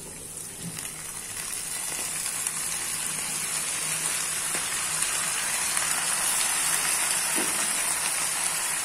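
Hot oil sizzling in a wok as a heap of genjer (yellow velvetleaf) greens goes in, a steady hiss that grows louder over the first few seconds and then holds.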